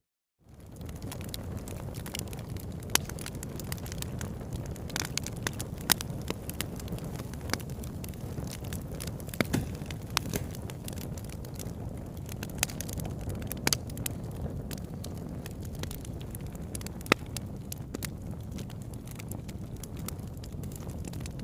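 Crackling fire: a steady low rumble of burning with frequent irregular sharp pops and snaps, fading in from silence at the very start.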